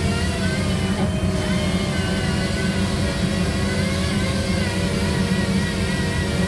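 A steady low mechanical drone, with faint tones above it that waver slowly in pitch.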